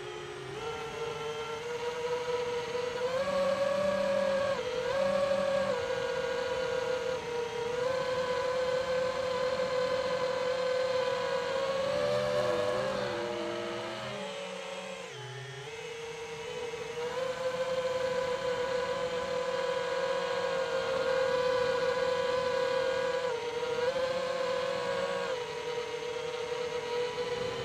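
Multirotor drone's motors and propellers whining, the pitch rising and falling with the throttle, with a drop in pitch and level about halfway through.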